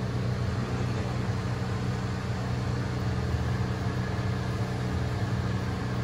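Corded electric hair clippers running with a steady low buzz.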